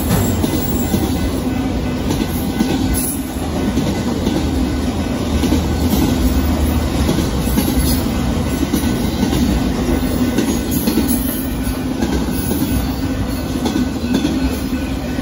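Freight train of multilevel autorack cars rolling past at steady speed, its steel wheels running on the rails in continuous, even noise.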